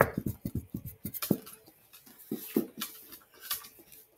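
Light, irregular clicks and taps, quick in the first second and then scattered: a dog shifting about on a kitchen counter and blankets beside a plastic ketchup squeeze bottle being handled at its face.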